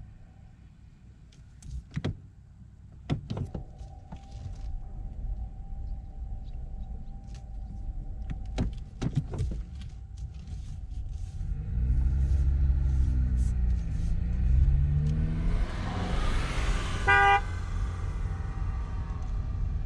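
A Honda Fit e:HEV driving with steady road noise and a few scattered clicks. About twelve seconds in, a louder low engine sound comes in, its pitch falling and then rising, and near the end there is one short horn toot.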